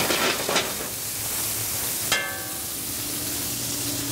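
Blackened salmon fillets sizzling in olive oil in a hot cast iron pan, a steady hiss. A couple of light knocks come near the start, and a short metallic ring about two seconds in.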